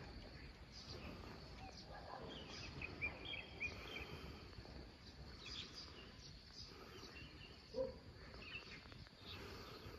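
Faint countryside ambience: small birds chirping and a steady high insect drone over a low rumble. One brief, louder low call comes about eight seconds in.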